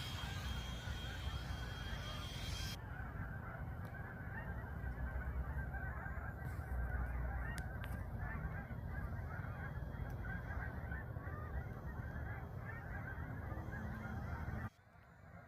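A large flock of birds calling at once, many short calls overlapping, over a low rumble. A hiss cuts off about three seconds in, and the sound drops suddenly near the end.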